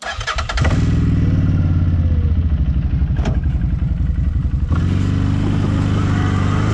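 ATV engine running steadily while the quad is being ridden.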